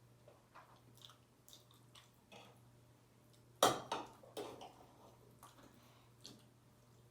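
A person eating vegan lasagna: soft wet mouth clicks and chewing, with a louder sharp sound about three and a half seconds in, followed by a smaller one.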